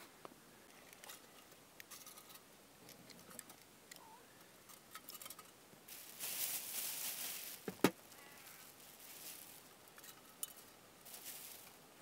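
Faint handling noises on the ice: scattered small clicks and scrapes, a crunching stretch about six seconds in, and one sharp knock near eight seconds.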